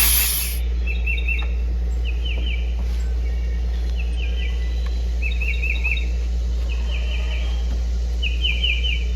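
A songbird repeats a short chirping phrase about every second and a half over a steady low hum. A brief loud hiss sounds right at the start.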